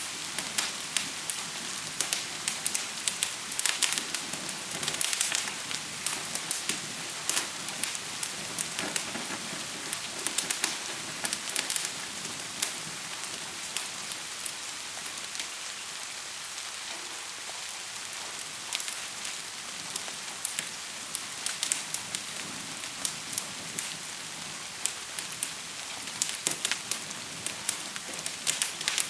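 Steady rain hiss mixed with a wood fire crackling, with frequent sharp snaps that thin out for a while in the middle.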